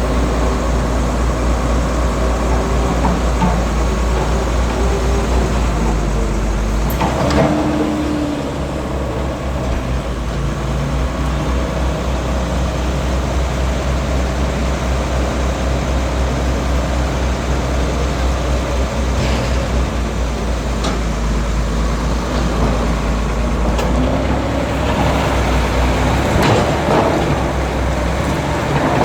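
Heavy construction machine's diesel engine running steadily, with a few brief sharper sounds over it, the strongest about seven seconds in and another near the end.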